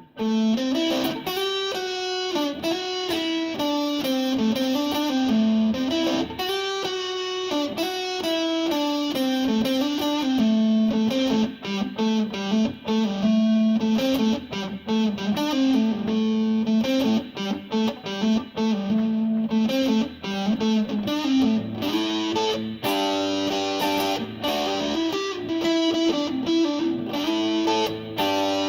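Electric guitar played through a booster-overdrive pedal, picked up by a cell phone's microphone. It plays single-note melodic lines with a mildly driven tone. The notes turn short and choppy through the middle and fuller and denser near the end.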